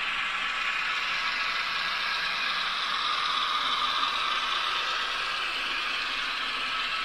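N scale model trains running on the track: a steady whir of the locomotive motors and gearing, with the wheels running on the rails.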